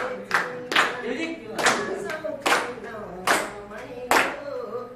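Hands clapping in a steady rhythm, about two claps a second with some claps louder than others, while people sing along.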